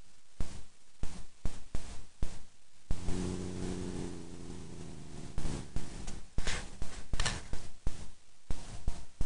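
Domestic tabby cat purring right against the microphone, heard as irregular close thumping pulses, with a steady low drone for about two and a half seconds from about three seconds in.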